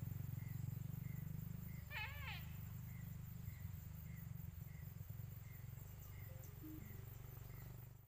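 Outdoor ambience dominated by a steady low rumble. Over it, a short high chirp repeats about one and a half times a second, and a single warbling call rises and falls once about two seconds in.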